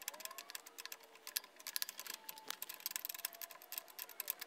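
Rapid, irregular small metal clicks and ticks of a 7/16 inch open-end wrench and locking pliers working a bolt and lock nut on a recliner mechanism's cross support.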